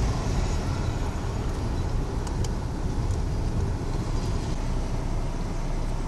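Car engine running with a steady low rumble, heard from inside the cabin as the car rolls slowly forward.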